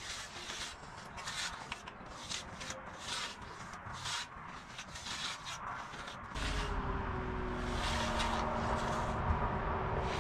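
Faint scraping of concrete finishing tools on wet concrete in short, irregular strokes. About six seconds in, a steady low rumble with a hum joins in.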